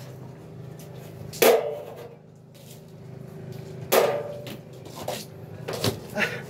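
Two sharp knocks with a brief ring, about a second and a half in and again about four seconds in, from the wooden gymnastic rings and their hanging frame being grabbed and swung on, with a few lighter clicks near the end. A steady low hum runs underneath.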